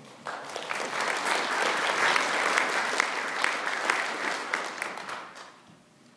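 Audience applauding, building up quickly and dying away near the end.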